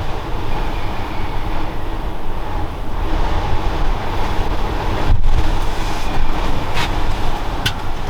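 Strong wind buffeting the microphone: a loud, steady rumbling rush, heaviest in the low end, that eases for a moment about five seconds in.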